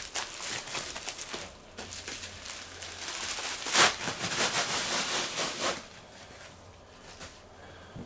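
Rustling and crinkling of a package being opened by hand and the contents pulled out, with one sharp crack a little before the middle; it quiets down for the last couple of seconds.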